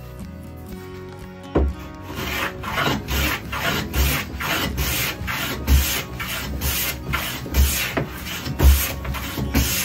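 Lie-Nielsen No. 5 jack plane taking quick repeated strokes along rough-sawn oak, each stroke a scraping hiss as shavings come off, with a few heavier knocks among them. The surface is being cleaned up from rough-sawn to smooth.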